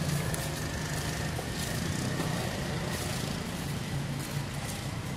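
Steady low rumble, with a faint thin steady tone above it.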